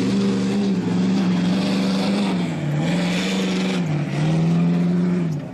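A Ford Super Duty pickup's diesel V8 running hard at high revs while pulling a weight-transfer sled. Its pitch dips briefly and recovers three times, and it falls off right at the end as the pull finishes.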